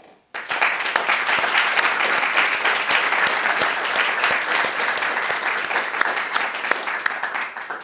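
Audience applauding: dense clapping that starts abruptly just after the start and dies away near the end.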